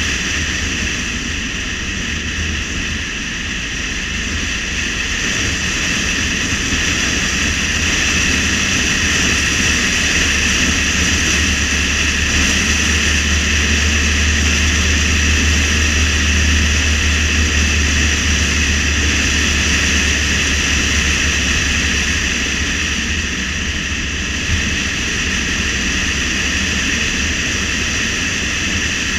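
Steady road, engine and wind noise of a car driving along a highway, with a low rumble that grows louder in the middle and eases off again.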